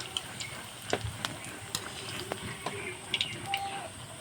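Egg pakoras coated in raw potato frying in hot oil in a kadai over a medium flame: a steady gentle sizzle with scattered small pops and crackles.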